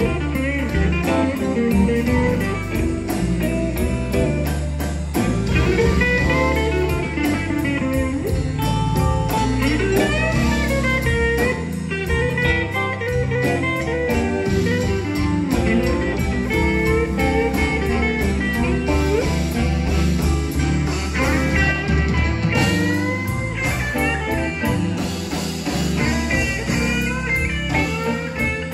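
Blues band playing live, an instrumental passage with no singing: electric guitars over a drum kit, a lead guitar line with bent, gliding notes on top.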